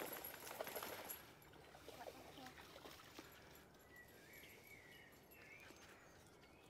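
Faint splashing of a dog wading out of a river onto the bank during the first second or so. Later, about four seconds in, a faint wavering high-pitched call is heard briefly.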